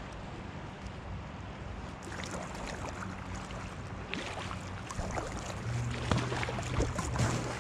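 River water rushing and splashing around a kayak's hull as it moves into a riffle. It gets louder and choppier in the second half.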